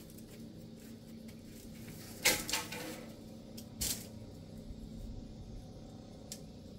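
Two brief clattering knocks of objects being handled, the first and louder about two seconds in and a shorter one near four seconds, over a steady low hum.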